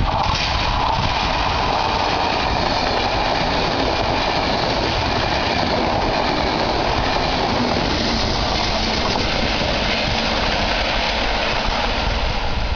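Electric push-pull regional train, an E464 locomotive pushing low-floor coaches, running past close by: a steady rushing rumble of wheels on rail.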